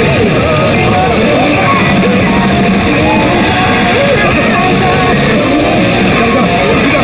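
A rock song with a singer, played loudly and steadily through a Golden Kamuy smart pachislot machine's speakers.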